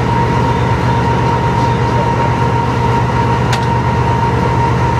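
Running noise inside a moving diesel locomotive's cab: a steady low engine drone and wheels on rail, with a constant high-pitched whine over it. A single sharp click comes about three and a half seconds in.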